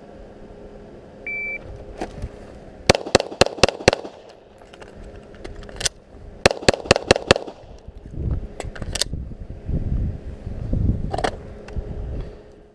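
A shot timer beeps once, then a Glock 17 9mm pistol fires a fast string of about five shots. After a break of a couple of seconds, the reload in the freestyle-reload-freestyle string, it fires a second fast string of about five shots, with a few more sharp cracks afterwards.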